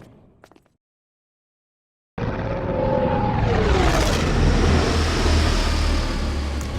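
LAAT gunship landing sound effect: a heavy engine rumble with a whine that glides down in pitch as the gunship settles. It cuts in abruptly about two seconds in, after the fading tail of the takeoff effect and a moment of dead silence.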